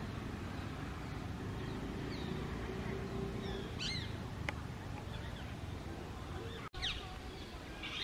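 Rose-ringed parakeets giving a few short, high calls over a steady low background rumble, with a brief dropout near seven seconds.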